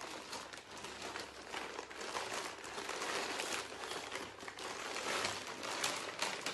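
Packaging crinkling and rustling as a parcel is handled and opened, with irregular sharp crackles throughout.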